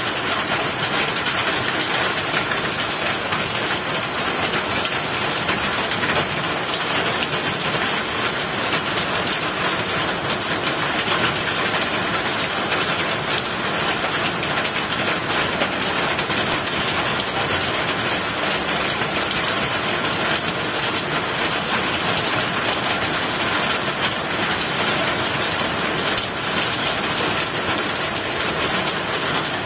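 Heavy rain falling on grass and wet paving, a dense, steady hiss.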